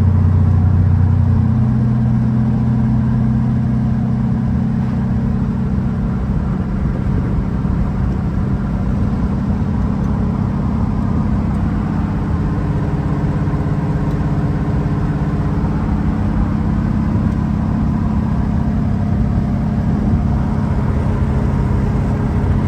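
LT1 V8 engine in a C3 Corvette running steadily with a constant low drone.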